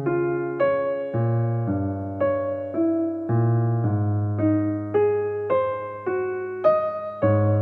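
Background music on electric piano: a gentle melody of single notes struck about twice a second, each fading, over held bass notes.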